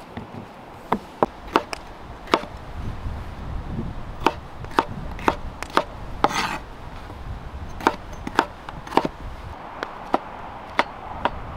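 Kitchen knife chopping yellow bell pepper on a wooden cutting board: short sharp knocks of the blade striking the board, irregularly spaced at roughly one or two a second, with a pause of about two seconds early on.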